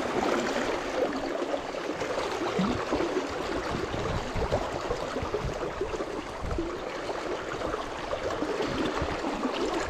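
Shallow, fast river running over rocks and breaking around the wader's legs: a steady rush and babble of water.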